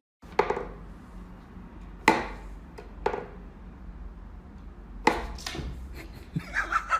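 Wooden knocks from a wooden whack-a-mole cat toy box as its pegs are pushed and a cat's paws strike at the holes: a few separate sharp knocks a second or so apart, the loudest about two seconds in.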